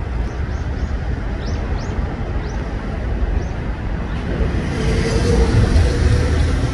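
Steady low rumble of outdoor background noise, with several faint, short high chirps from small birds in the first few seconds.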